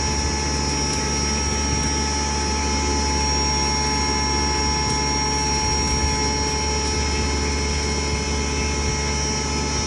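Electric stoneless maize grinder (flour mill) running steadily: a constant machine drone with a high, unchanging whine over it.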